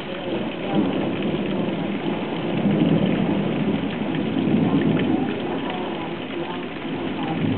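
Thunderstorm: heavy rain falling steadily, with rolling thunder rumbling under it and swelling about three seconds in and again around five seconds.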